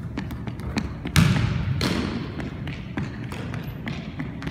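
A basketball bouncing on a wooden gym floor: a series of irregular thuds, the loudest about a second in.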